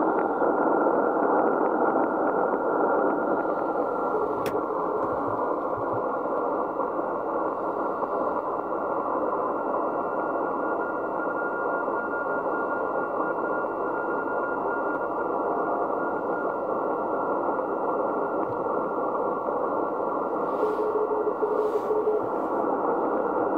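Icom IC-7600 HF transceiver receiving the 40 m band in CW mode: steady band-noise hiss, muffled by its narrow 1.2 kHz filter. There is one click a few seconds in, and a faint short tone near the end.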